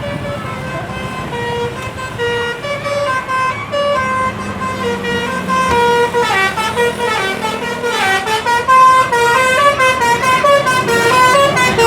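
Bus's Basuri multi-tone 'telolet' horn playing a tune of short stepped notes, louder in the second half.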